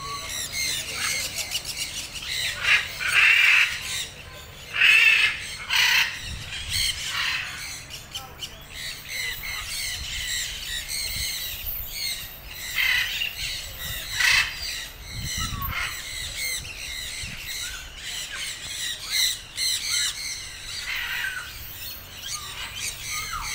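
Parrots giving loud, harsh squawks again and again, with the loudest calls clustered a few seconds in and again about halfway through.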